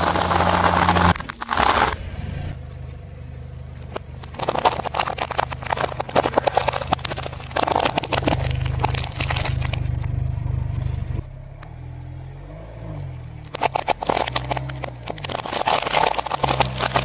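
Car engine running low while its tyre rolls over and crushes objects, giving several long spells of dense crackling and crunching. The engine pitch rises and falls a few times.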